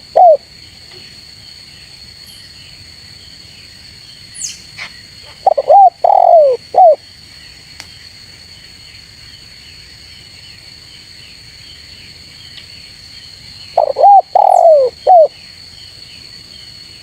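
Spotted dove cooing: a phrase of three or four arched coos, repeated about eight seconds later, with the end of an earlier phrase right at the start. Under the coos runs a steady high insect drone with faint chirps of other birds.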